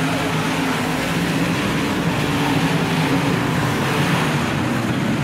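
Dirt-track race car engines running at speed around the oval, a loud, steady engine drone.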